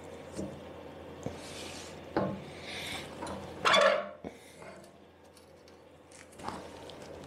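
Metal clinks and knocks as a front fork is worked into a Lambretta scooter frame. There are several separate knocks, with the loudest clank about four seconds in.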